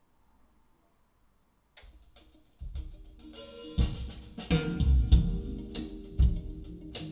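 Near silence, then about two seconds in a music track starts playing back from the CD player: drums with cymbal and hi-hat strokes, and a low bass coming in soon after.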